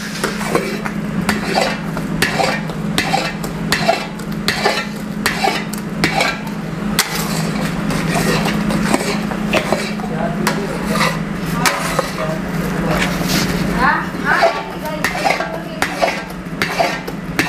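A long metal ladle stirring and scraping thick, grainy kalakand around a large metal kadhai, with repeated scrapes and clinks about twice a second over a steady low hum.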